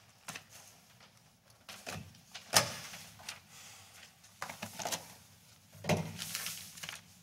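Several sharp thumps on a desktop, the loudest about two and a half seconds in, with paper rustling between them: documents being rubber-stamped and handled.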